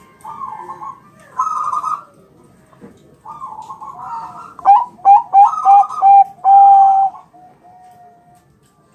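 Zebra dove (perkutut bangkok) cooing in repeated phrases. The phrases build to a loud run of short clipped coos in the second half and end on one long held coo.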